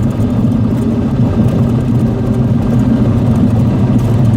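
Cessna 182's six-cylinder piston engine and propeller running steadily, heard inside the cockpit as an even, loud drone.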